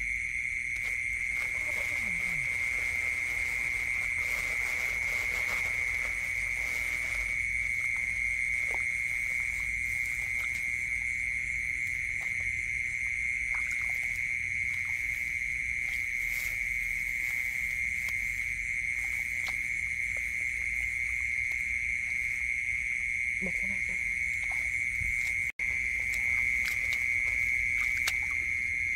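A continuous high-pitched chorus of night-calling animals holding one steady pitch, with a few faint short splashes of hands working in shallow muddy water.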